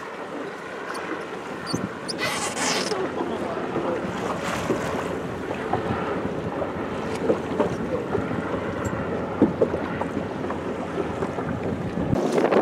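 Wind blowing across the microphone over choppy water sloshing against a boat's hull, with a brief louder rush about two seconds in.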